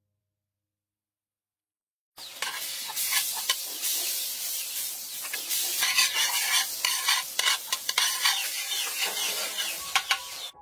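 Silence for about the first two seconds, then hot oil sizzling in a wok, with a metal utensil stirring and scraping against the pan in many quick, irregular clicks.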